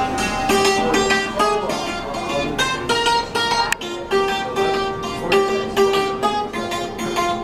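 Hammered dulcimer of the santur type playing a melody. Notes are struck in quick succession and ring on over one another.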